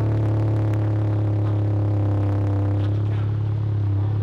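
Volkswagen Mk7 GTI's 2.0-litre turbocharged four-cylinder idling steadily through a newly fitted titanium cat-back exhaust and high-flow catted downpipe, the muffler and cat not yet broken in.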